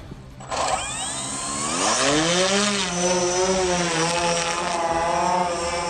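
Multirotor drone motors and propellers spinning up, rising in pitch until about two seconds in, then holding a steady, slightly wavering hum as the drone hovers.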